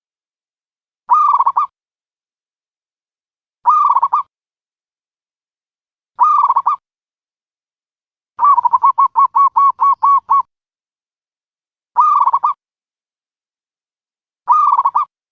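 Dove call recording used as a trapping lure: short, loud, pitched calls repeated about every two and a half seconds, with a quick run of about nine notes in the middle.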